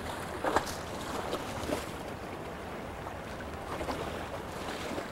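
Splashing of feet wading through shallow water as loaded canoes are pushed out, the loudest splash about half a second in. Steady wind noise underneath.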